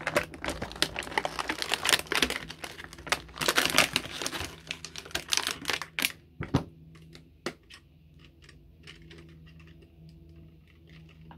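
Clear plastic packaging crinkling and crackling as it is handled and pulled out of a model's box, dense for about the first six seconds. After that it gives way to a few scattered light clicks and taps as the cardboard box is handled.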